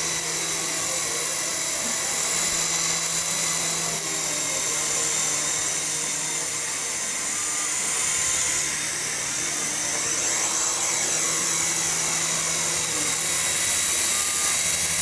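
Radio-controlled helicopter in flight: its small electric motor gives a steady high-pitched whine over the whir of the rotor blades, shifting a little in pitch as it manoeuvres.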